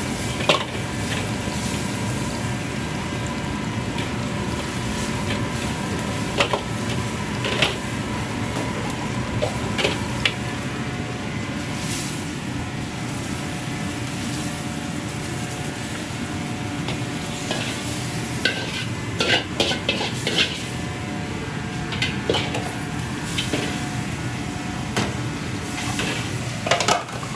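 Metal ladle stirring and knocking against a steel wok of sizzling curry sauce over the steady rush of a high-flame gas wok burner. Sharp clanks come scattered through, several close together about two-thirds of the way in and again near the end.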